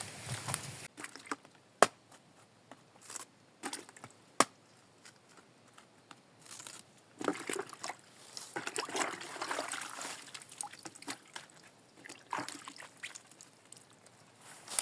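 Water sloshing and trickling in irregular splashes, with scattered sharp clicks.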